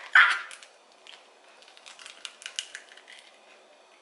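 A hen's egg being cracked by hand: one sharp knock of the shell against a hard edge right at the start, then faint, scattered little cracks and crackles as the shell is pried apart.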